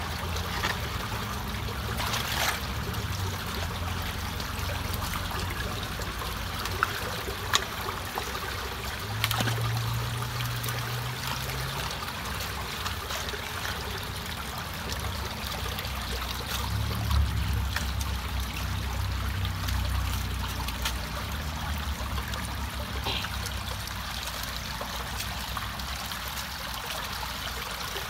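Muddy water streaming steadily through matted leaves, grass and twigs into a partly unclogged culvert, with a few small clicks along the way.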